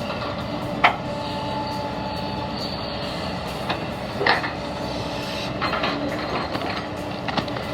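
Excavator engine running steadily under load as the long welded boom extension and blade drag a load of mud, with two brief sharp sounds from the working machine, the louder about a second in and another just past four seconds.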